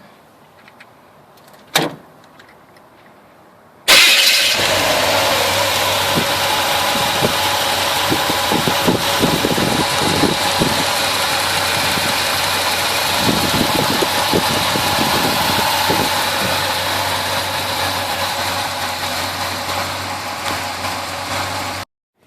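1971 Chevelle's 350 small-block V8 starting suddenly about four seconds in and then running steadily, after its rocker arm nuts were readjusted to restore compression in number one cylinder. The sound cuts off abruptly near the end.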